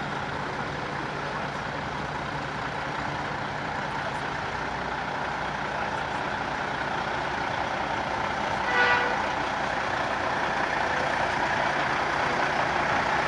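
Diesel engine of a Western Star prime mover running as the truck drives slowly toward the listener, growing gradually louder. A brief tone sounds about nine seconds in.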